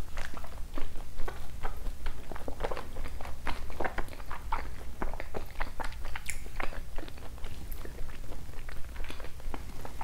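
A mouthful of yukhoe, Korean raw beef, being chewed with the mouth closed into a close lavalier microphone: a steady run of short mouth clicks and smacks.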